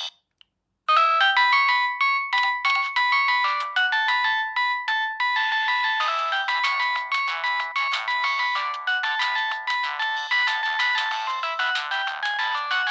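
Siemens C65 mobile phone playing one of its stock polyphonic ringtones: a quick, busy electronic melody of many short notes, thin with no bass. It starts about a second in, after a brief silence.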